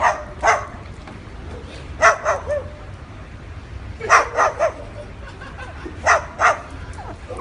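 A cockatoo barking like a dog: short, harsh bark-like calls in groups of two to four, about every two seconds.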